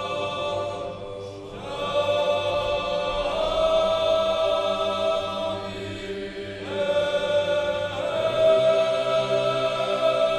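Church choir singing a slow unaccompanied chant in long held chords that shift every couple of seconds.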